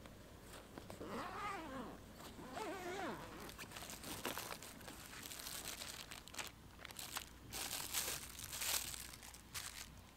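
Zipper on a fabric carry bag pulled open in two strokes, each a buzzing whine that rises and falls in pitch. Plastic wrapping then crinkles and fabric rustles as the contents are handled.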